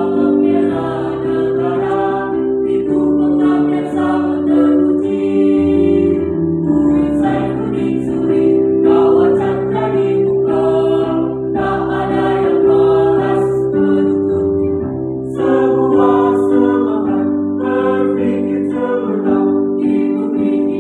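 Mixed choir of women's and men's voices singing, accompanied by an electronic keyboard holding chords that change every few seconds.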